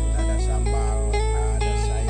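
Background music with plucked guitar notes over a steady held bass.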